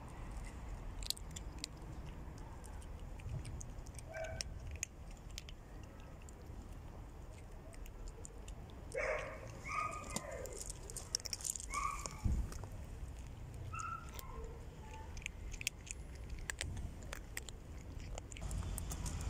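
Cats crunching dry kibble, many small sharp crunches, with a few short meows around the middle.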